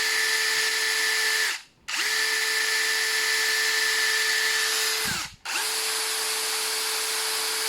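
Prostormer 20V brushless hammer drill spinning with no load in three trigger pulls, cutting out briefly about a second and a half in and again about five seconds in. Each run holds a steady whine of constant pitch, winding up and down quickly at the starts and stops.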